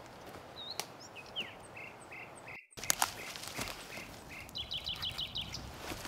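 Woodland birdsong: a small bird repeating short notes, then a quick run of higher notes about four and a half seconds in, over crunching and rustling of dry leaves and twigs underfoot and by hand. The sound cuts out completely for a moment about two and a half seconds in.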